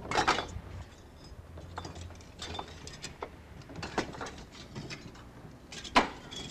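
Hollow clay bricks clinking and knocking against each other as they are handled and stacked: a quick cluster of knocks at the start, then single knocks every second or so, the loudest about six seconds in.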